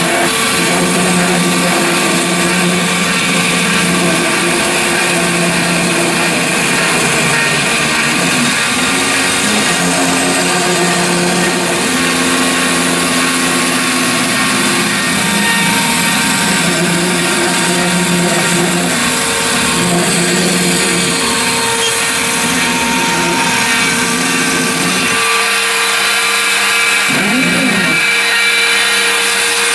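Home-built CNC machine running: its spindle motor gives a steady high whine and hiss, while the stepper motors hum at tones that shift every second or two as the axes move, with a brief rise and fall in pitch near the end.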